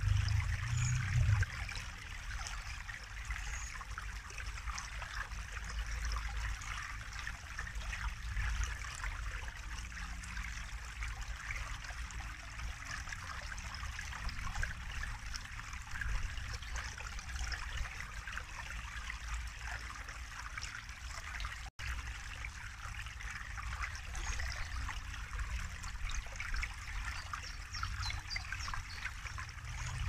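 Small forest brook flowing and trickling over a low step of stones and roots: a steady splashing babble of water. It cuts out for an instant about two-thirds of the way through.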